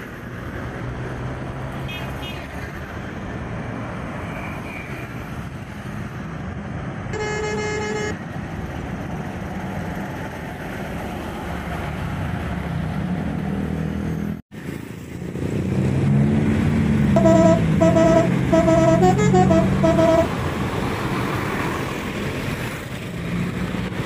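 Bus telolet horn: a multi-tone horn that plays a quick tune of short notes, changing pitch, for about three seconds near the end. It sounds over a steady rumble of bus engine and traffic, with the engine rising and falling in pitch. Earlier, a single short horn note sounds once.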